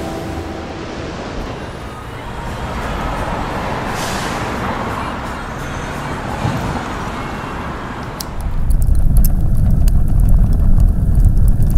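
Surf washing at first, giving way to city traffic noise. About eight seconds in, a much louder low rumble of an open charcoal fire comes in, with sharp crackles.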